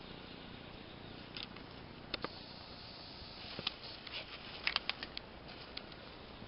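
Spring forest ambience: a faint steady hiss broken by scattered sharp clicks and crackles, two about two seconds in and a quick run of several a little past the middle.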